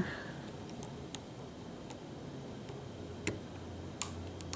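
Hook pick working the pin tumblers inside a pin-tumbler lock: scattered light clicks, about six, with a slightly louder one a little past three seconds in.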